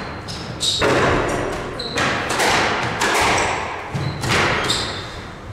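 Squash rally in an echoing squash court: the ball is struck by the rackets and smacks the walls in several hard hits about a second apart, with short high squeaks of shoes on the wooden floor between them.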